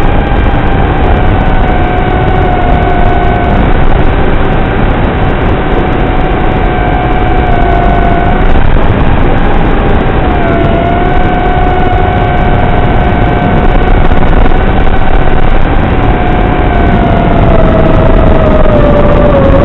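FPV quadcopter's motors and propellers whining steadily under heavy hiss, as heard over the analog video feed. The pitch drifts a little, then slides down near the end as the throttle comes off.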